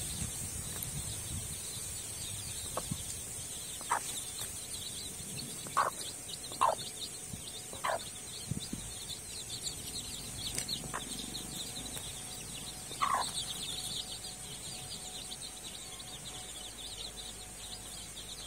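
A brood of jathi kollu chicks peeping continuously in short, high, falling notes. About six louder, lower single calls from a grown chicken break in, most of them between about 4 and 8 seconds in and one more near 13 seconds.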